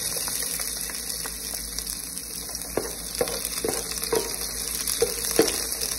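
Chopped garlic sizzling in hot oil in a deep aluminium pot, with a wooden spoon stirring and scraping it; the spoon knocks against the pot several times in the second half.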